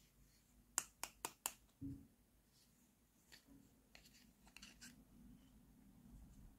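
Fingers and fingernails tapping and handling a small hollow pink plastic toy cabinet: four quick, sharp clicks about a second in, a soft low knock just after, then a few fainter clicks.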